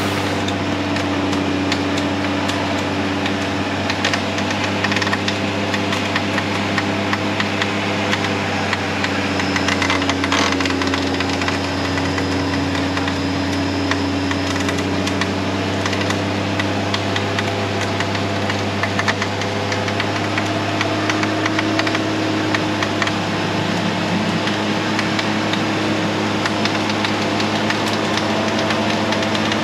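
Jeep Cherokee XJ's engine running steadily as the lifted 4x4 crawls through deep mud.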